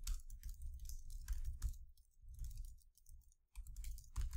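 Typing on a computer keyboard: quick runs of key clicks with dull thumps underneath, in three bursts with short pauses between them.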